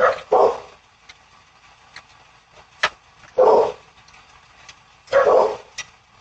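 A dog barking: two barks right at the start, then single barks about three and a half and five seconds in, with a few light clicks in between.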